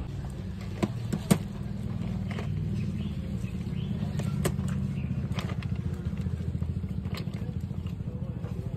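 A small engine running at idle, a low, fast, even throbbing, with a few sharp clicks over it, the loudest about a second in.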